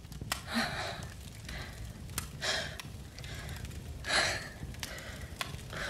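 A young woman breathing heavily and unevenly in distress, about five audible breaths or gasps, the strongest about half a second and about four seconds in, with a few faint sharp clicks over a low steady rumble.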